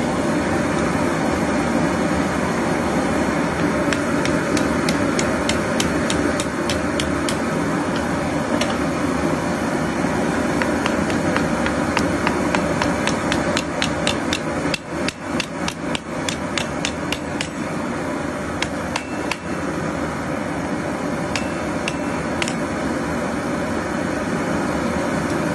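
Hand hammer striking red-hot steel on an anvil: runs of quick metallic blows, several a second, thickest a few seconds in and again around the middle, over a steady rushing noise.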